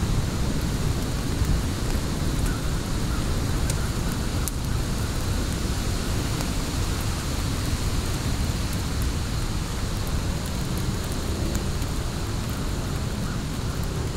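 A fire burning in a fire pit: a steady low rumble with occasional sharp, brief crackles.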